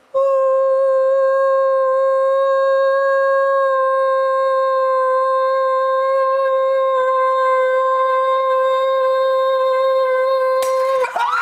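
A singer's voice holding one loud, perfectly steady note through a microphone and loudspeaker, pitched at the wine glass's natural frequency so that the glass resonates. About ten and a half seconds in, the glass shatters with a sudden crash and the note stops, with shouts starting right at the end.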